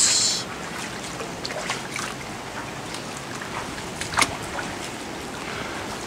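Shallow floodwater flowing across a flooded backyard: a steady wash of moving water, with a single sharp tick about four seconds in.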